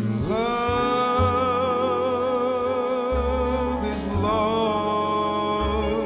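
A male jazz vocalist slides up into a long held note sung with vibrato, then moves to a second held note about four seconds in. A jazz orchestra accompanies him, with low bass notes underneath.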